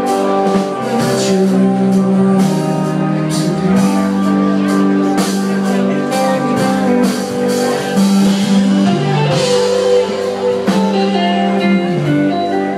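Live rock band playing an instrumental jam: electric guitars holding long sustained notes over bass and a drum kit, with regular drum hits.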